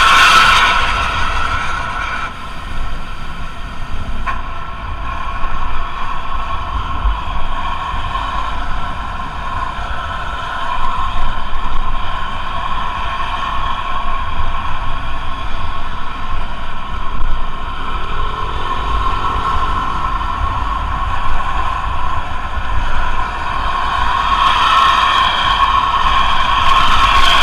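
Intercity bus running: a continuous rumble with several steady high whining tones over it. The whine is strong at first, drops back after about two seconds, and swells again over the last few seconds.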